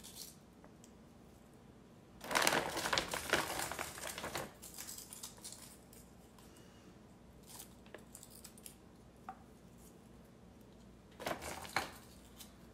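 Plastic ravioli bag crinkling while being handled, in two bursts, the first longer, with a few light clicks of pasta and hands against a glass baking dish in between.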